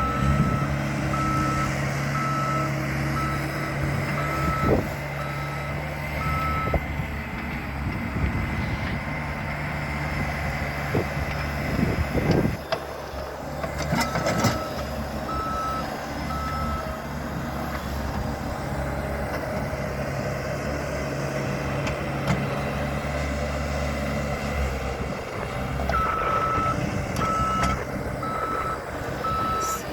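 Small bulldozer's engine running steadily while its reverse alarm beeps in spells: from the start for about seven seconds, briefly around the middle, and again near the end. A few sharp knocks come in between.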